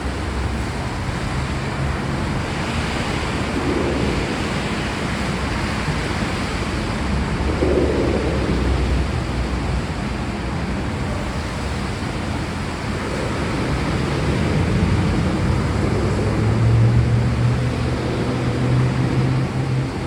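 Steady heavy rain, an even wash of noise with soft low swells every few seconds. A low steady hum joins in about three-quarters of the way through.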